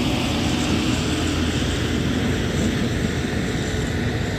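Pulling tractor's engine running steadily and loudly at the start of the track, with no revving rise or fall.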